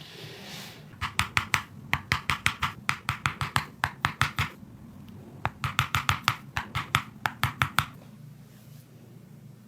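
Rapid rhythmic hand strikes on a patient's body, like percussive massage tapping or chopping during a chiropractic treatment, about five slaps a second. Two runs of strikes with a short pause between them.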